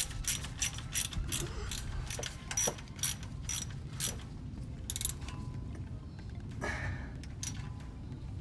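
Socket ratchet clicking in quick, even strokes, about four a second, as the thermostat-housing bolt is run in. The clicking stops about five seconds in, leaving a few scattered clicks.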